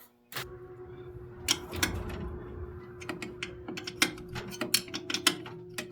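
Hand tools working on the brake master cylinder fittings, a run of irregular sharp clicks and taps. Background music with a steady held organ note runs underneath from about half a second in.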